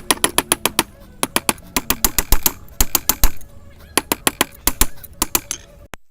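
Hand hammer striking hot 1095 steel on an anvil, quick runs of ringing blows with brief pauses, as the end of the bar is stepped down and drawn out.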